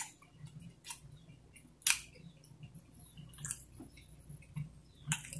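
Close-miked mouth sounds of someone chewing pizza: a few sharp wet clicks and smacks about a second apart, with soft chewing between.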